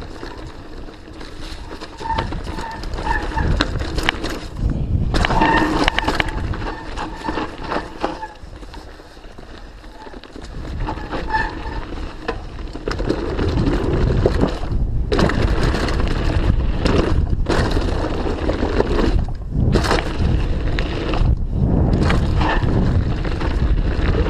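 Mountain bike descending a rough dirt trail at speed: tyres rumbling over the ground and the bike rattling and knocking over bumps. It eases off briefly about a third of the way in, then grows louder and rougher through the second half.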